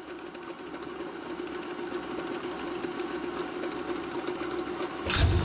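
Reel-to-reel film projector running: a steady mechanical whirr with a fast, even clatter, getting gradually louder, and a low thump near the end.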